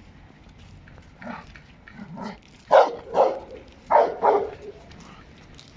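Giant Schnauzer barking: a couple of soft barks, then two loud double barks about a second apart.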